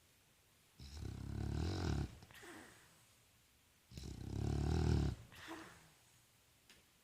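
Boston terrier snoring: two long snores about three seconds apart, each lasting over a second and each followed by a brief, softer breath.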